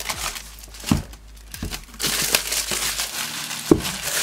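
Clear plastic shrink-wrap being peeled off a cardboard marker case, crinkling and crackling. Two dull knocks, one about a second in and one near the end.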